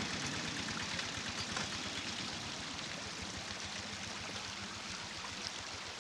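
Water running steadily in a small ditch stream. Under it, the small diesel locomotive's engine fades away during the first couple of seconds as it pulls off.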